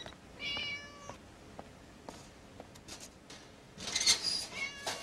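Domestic cat meowing: a short call about half a second in, then louder calls near the end, the last falling in pitch. A few faint clicks come in between.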